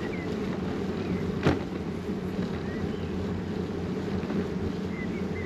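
Steady rumble of wind buffeting the microphone and tyres rolling while riding a bicycle, with one sharp click about a second and a half in and a few faint high chirps.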